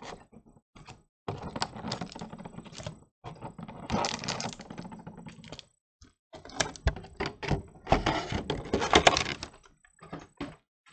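Clear plastic and cardboard packaging of a trading card collection box being handled and pulled open: irregular crackling with sharp clicks, in spells broken by short pauses, loudest near the end.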